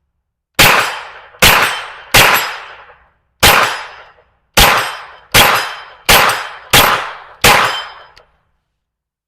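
Smith & Wesson FPC 9mm carbine firing nine shots at an uneven pace, under a second or so apart, each trailing off in a ringing tail. These are the last rounds of a 23-round magazine.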